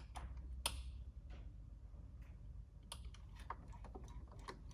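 Scattered light clicks and taps at an irregular pace, the sharpest about a second in, from a metal spanner and brake parts being handled while bleeding a motorcycle's rear hydraulic brake.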